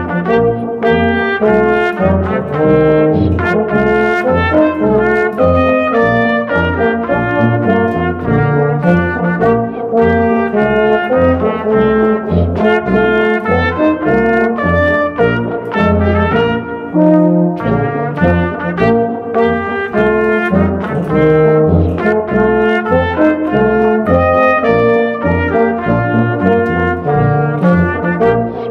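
Brass band music: trumpets and trombones playing over a low bass that pulses in a steady beat.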